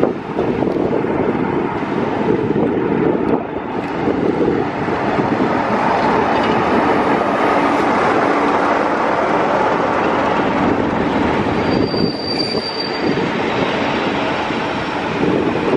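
A Class 47 diesel locomotive drawing past close by on arrival, followed by its coaches rolling alongside the platform with a steady rumble of wheels on rail. A brief high squeal comes about twelve seconds in as the train slows.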